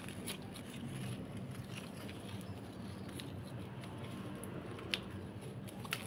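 Pruning shears being worked in among the twigs and leaves of a small citrus tree, with faint rustling and two sharp clicks about five and six seconds in.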